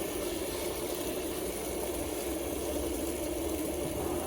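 Several fidget spinners spinning together, giving a steady, even whir.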